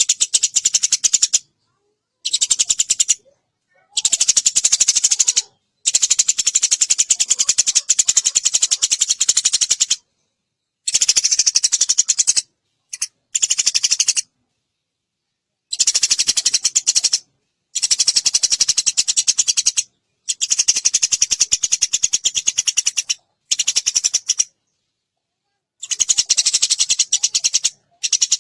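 Eurasian tree sparrow chirping in fast, tight chattering runs that last one to four seconds each, broken by short gaps of dead silence.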